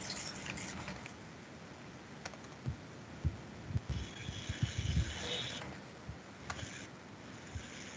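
Computer keyboard being typed on: irregular key taps, bunched together in the middle of the stretch.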